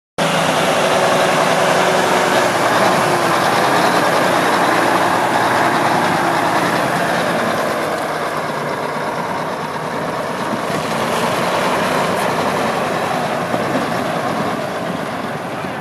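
1976 Mack RD685S tri-axle dump truck's diesel engine idling steadily, a little fainter from about halfway through.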